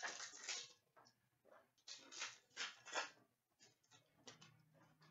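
Hockey trading cards and pack wrappers being handled, a handful of short rustles and scrapes, the loudest in the first three seconds.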